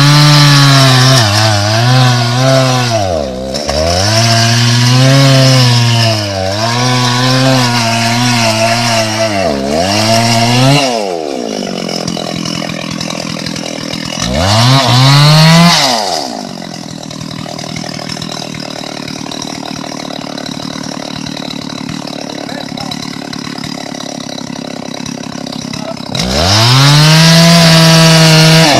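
Two-stroke chainsaw cutting into the base of a sonokeling (Indonesian rosewood) trunk at full throttle, its engine pitch sagging and recovering again and again under the load of the cut for about eleven seconds. It then drops to idle, revs briefly, idles for about ten seconds, and revs back up to full throttle near the end.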